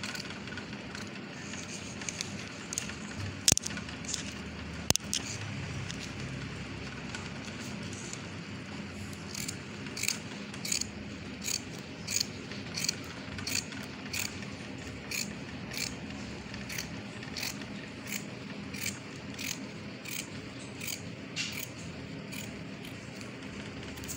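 Fabric shears cutting cloth along a paper pattern: irregular snips at first, with two sharper clicks a few seconds in, then an even run of short crisp snips about every two-thirds of a second through the second half.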